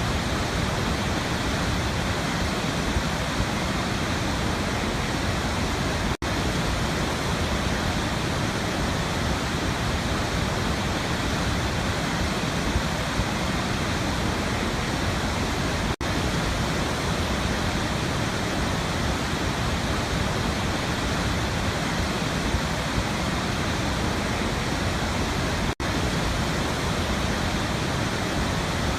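Waterfall rushing in a steady, even roar of water noise, with three momentary dropouts about ten seconds apart.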